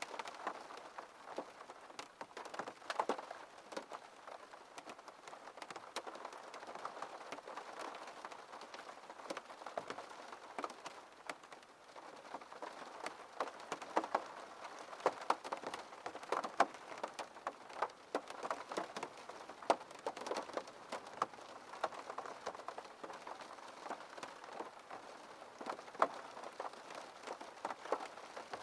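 Rain falling on a window pane: a steady patter with many single drops ticking sharply against the glass.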